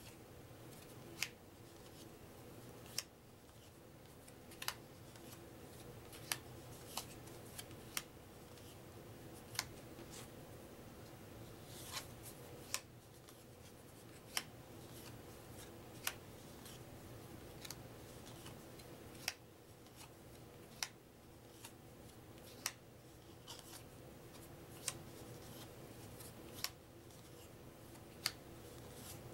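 Paper trivia cards being flipped one at a time off a small hand-held deck, each flip giving a short crisp snap, about one every one to two seconds.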